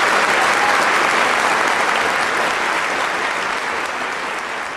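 Audience applause after a dance, a dense steady clapping that gradually dies down.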